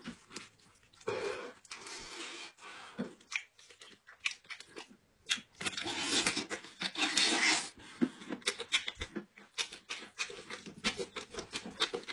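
Wet eating sounds from a mukbang of cooked goat head: many sticky clicks and smacks as sauce-covered hands tear meat from the head and the mouth chews it. In the middle comes a longer stretch of slurping and sucking at a piece held to the mouth, the loudest part.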